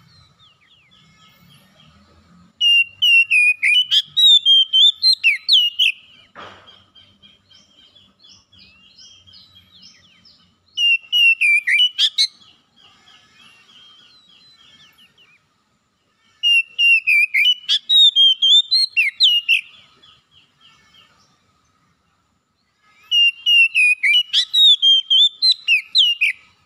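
Oriental magpie-robin (kacer) in full song: four loud phrases of rapid notes leaping up and down in pitch, each lasting two to four seconds, with softer chattering between them.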